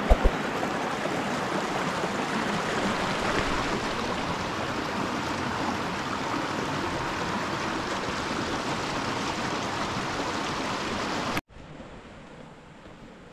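Steady rush of flowing stream water, cutting off abruptly about eleven seconds in to a much quieter background hiss.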